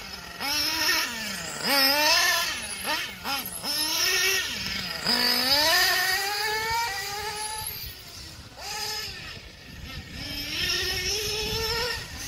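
Nitro RC cars' small glow engines revving, pitch rising and falling repeatedly as they accelerate and back off, with two engines sometimes heard at once.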